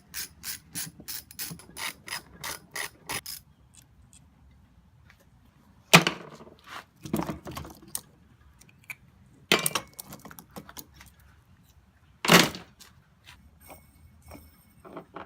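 Rapid, regular mechanical clicking, about four clicks a second for roughly three seconds, then three sharp knocks a few seconds apart with lighter clicks and taps between.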